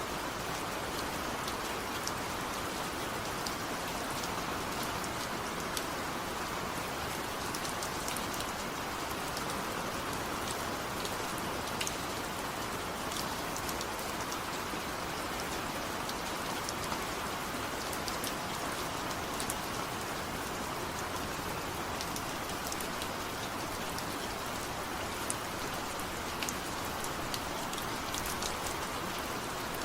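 Steady rain: an even hiss with scattered sharp drop ticks throughout.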